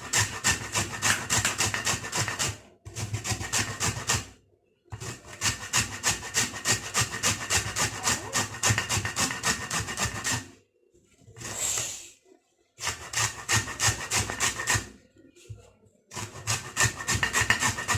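Lemon rubbed back and forth on a hand grater to take off the yellow zest: quick rasping strokes, about four or five a second, in runs of a few seconds with short pauses between.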